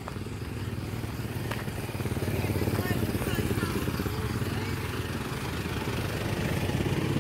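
Engines of passing road vehicles running with a low, rapid pulse, growing louder about two seconds in as cars come close and pass.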